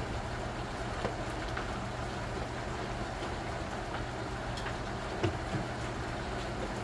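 Rain falling steadily: an even hiss, with a few faint ticks of drops landing close by.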